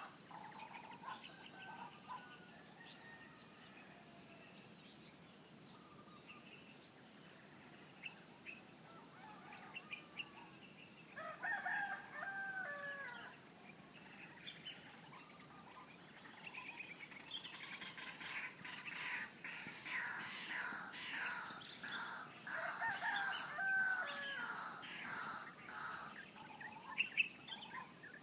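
A rooster crows twice, once about 11 seconds in and again near 23 seconds, each crow lasting about two seconds, among small birds chirping that thicken into a busy chorus in the second half. A steady high hiss runs underneath.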